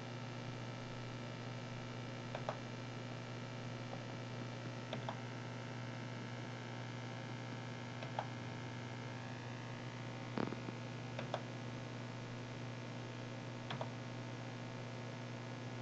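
Steady electrical-sounding hum with a handful of faint, widely spaced clicks, about six of them.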